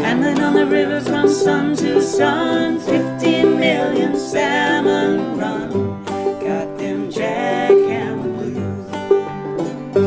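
Two acoustic guitars and a banjo playing a folk song together, with a woman and a man singing the verse together; the singing stops near the end while the guitars and banjo play on.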